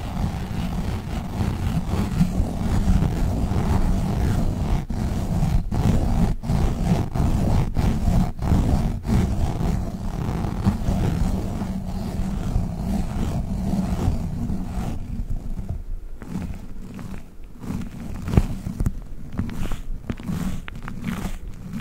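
Globbles, sticky squishy toy balls, squished and handled right at the microphone: a dense, close, low sound studded with many sharp sticky clicks. It turns quieter and sparser about fifteen seconds in.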